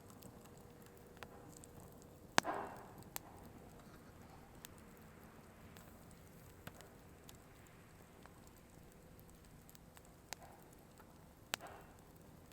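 Burning firewood crackling: scattered sharp pops over a faint steady hiss, the loudest about two seconds in and another near the end.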